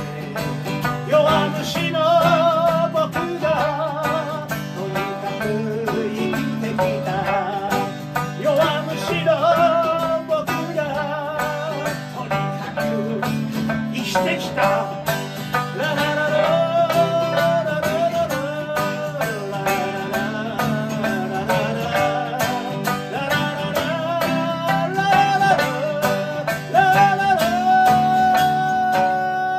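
Live acoustic folk band playing on after the last sung words: two acoustic guitars strumming steady chords under a sliding melody line, with some singing. Near the end the melody settles on one long held note.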